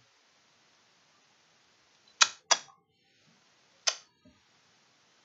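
Three sharp clicks against quiet room tone: two in quick succession about two seconds in, and a third near four seconds.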